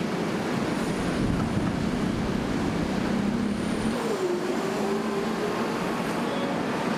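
Steady city road traffic. About four seconds in, the sound changes and an engine note dips slightly, then holds steady.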